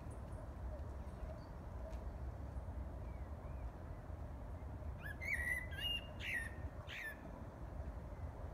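Common blackbird singing: a faint short warble about three seconds in, then a phrase of fluty whistled notes ending in high twittering, about five to seven seconds in. A steady low rumble runs underneath.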